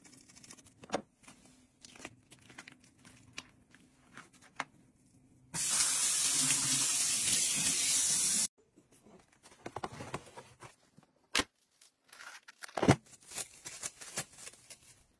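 Scissors snipping open a plastic bacon package, then a kitchen tap running into the sink over bacon strips for about three seconds, the loudest sound. After that, plastic cling wrap crinkles and crackles as it is pulled and stretched over a metal bowl.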